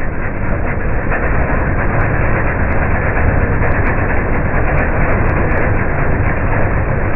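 MTD 5 HP chipper shredder running steadily at full speed, its small gas engine loaded as branches are fed in and shredded.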